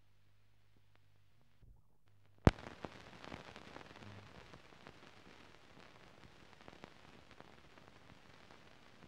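Surface noise of an old film's optical soundtrack: a low hum, then a sharp pop about two and a half seconds in, followed by steady crackle and hiss with scattered clicks.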